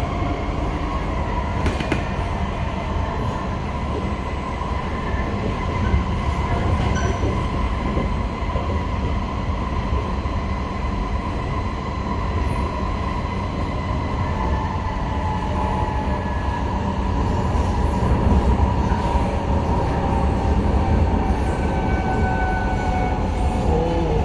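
Cabin running noise of a C151A MRT train between stations: a heavy low rumble of wheels on track with steady high whining tones over it, growing somewhat louder about two-thirds of the way through.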